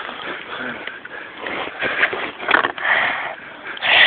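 A man's breathy snickering and sniffing close to the microphone, in a few short bursts, the loudest near the end.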